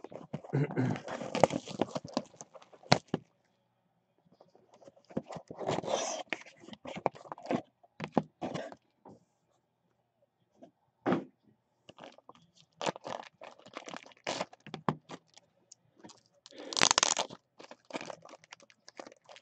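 Trading-card packaging and plastic card holders being handled: intermittent scraping, crinkling and clicks as a box is opened and cards are taken out. The handling comes in bursts with short quiet gaps, and there is a louder crinkling burst near the end.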